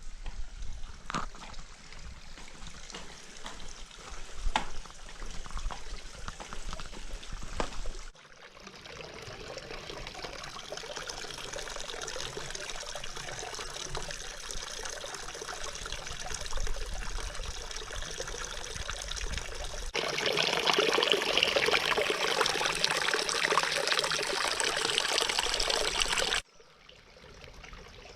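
Running water: a trickle with drips and small splashes, then after a cut a steady rush of flowing water, which grows louder after another cut about two-thirds of the way through and stops abruptly near the end.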